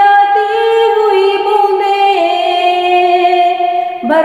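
A woman singing a naat unaccompanied, drawing out a long held note that steps up in pitch and then down, with a brief break and a new rising note near the end.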